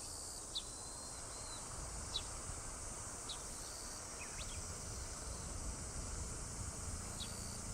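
Quiet rural outdoor ambience: a steady high insect buzz, with a bird giving short, falling chirps about five times and a thin whistle, over a low rumble.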